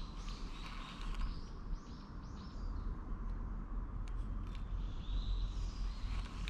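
Birds singing in the woods, a quick run of short repeated high notes in the first two seconds or so and a few more near the end, over a low steady rumble.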